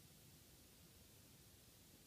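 Near silence: faint steady hiss and room tone.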